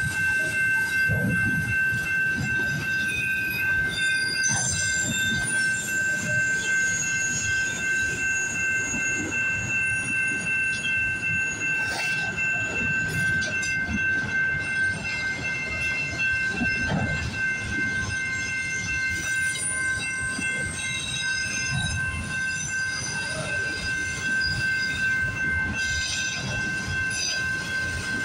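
Long freight train of autorack cars rolling steadily past a level crossing: a continuous low rumble of wheels on rail, with a steady high-pitched wheel squeal running over it.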